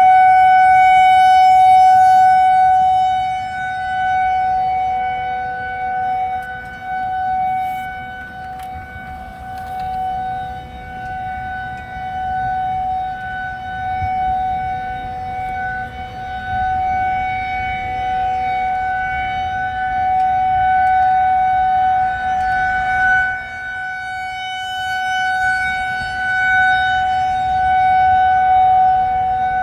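Outdoor tornado warning siren wailing on one steady pitch, its loudness rising and falling over several seconds at a time.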